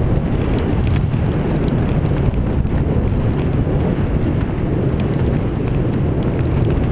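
Wind buffeting the microphone of a camera carried down a ski slope at speed: a steady, loud rumbling noise with no let-up.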